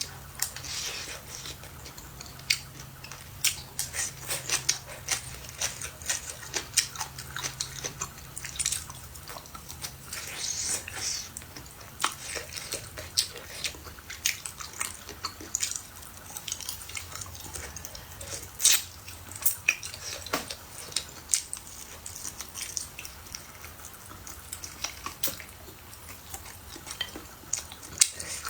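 Close-miked eating sounds: chewing and biting food, with many irregular sharp clicks and taps of utensils against a bowl.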